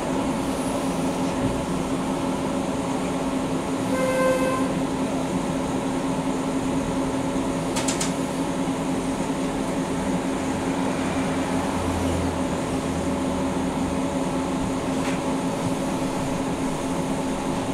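NGT8B tram standing still, its electrical equipment and ventilation giving a steady hum. A short beep comes about four seconds in, and a brief click about halfway through.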